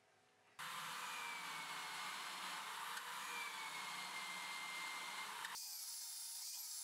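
Electric drill in a column drill stand boring holes in a beech board, a steady whir with a faint whine, starting about half a second in. Its sound changes about a second before the end, with a short high chirp repeating under it.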